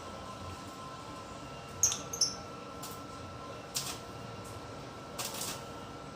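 Small cage birds: a quick cluster of short, high chirps about two seconds in, with scattered brief rustling and scratching around the cage.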